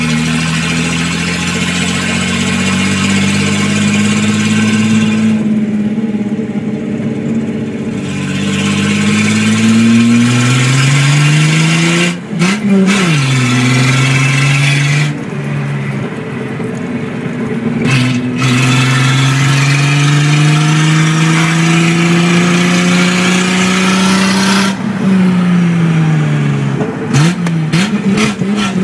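Datsun 280Z's straight-six on straight pipes, heard from inside the cabin while driven hard: the engine climbs in pitch under throttle, drops sharply at two gear changes, goes quieter off the throttle in between, and falls in pitch near the end with a few quick throttle blips.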